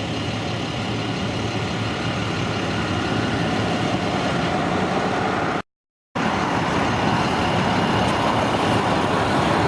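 Steady engine and road noise inside a moving tour coach. It cuts out to complete silence for about half a second midway, then resumes unchanged.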